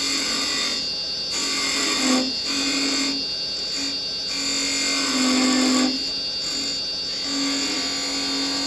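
Wood lathe running while a carbide chisel parts off a small turned finial. The cut comes and goes in several short stretches over a steady high whine.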